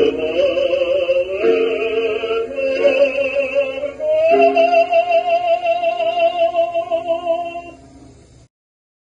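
A solo singer with accompaniment sings the final phrase of a romantic ballad: a few notes, then a long last note held with vibrato from about four seconds in. The note fades and the music stops shortly before the end.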